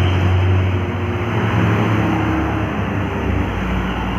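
Road traffic passing close by: a large vehicle's engine drone with tyre and road noise, the low hum easing off over the first couple of seconds.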